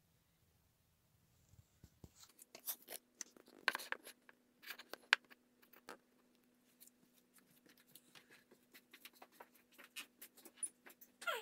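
Scattered light clicks, taps and scratchy rustles at an irregular pace, with a faint steady hum starting about two seconds in.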